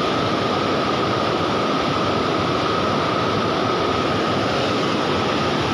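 Steady rush of water pouring over a river weir, an unbroken noise with a thin steady high tone running through it.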